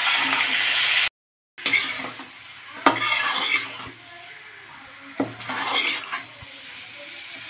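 Metal spatula stirring and scraping chicken pieces and onions frying in a metal kadai: a steady sizzle in the first second, then after a brief break, a few separate scrapes and clinks of the spatula against the pan.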